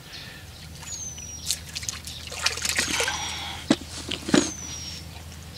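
Small splashes and drips of a hooked fish being drawn across the water surface on a float rod. A thin high whistle that slides down in pitch, likely a bird call, repeats about every one and a half seconds.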